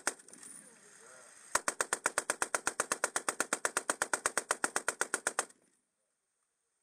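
Soviet Maxim M1910 machine gun firing: the last shots of a short burst right at the start, then, about a second and a half in, one long burst of about four seconds at a steady rate of roughly ten shots a second that cuts off sharply.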